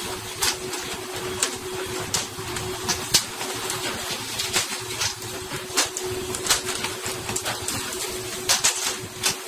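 A steady motor-like hum with irregular sharp clicks and knocks over it, about one or two a second.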